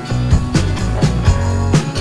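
Background music with a steady beat: bass, guitar and drums.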